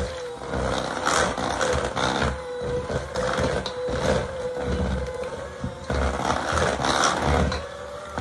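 Handheld electric mixer running, its beaters churning through thick cream cheese frosting in a stainless steel bowl, with a steady motor hum through the first five seconds or so.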